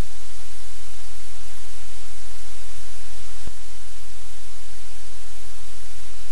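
Steady, loud static hiss over a low electrical hum from a live-cam audio feed, with a single sharp click about three and a half seconds in.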